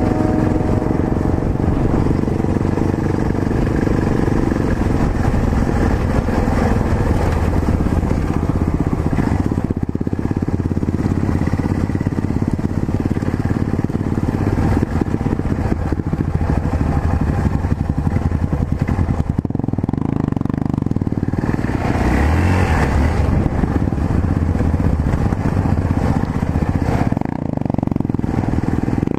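Yamaha XT660Z Ténéré's single-cylinder four-stroke engine running as the motorcycle rides along, with a steady rush of wind and road noise over it.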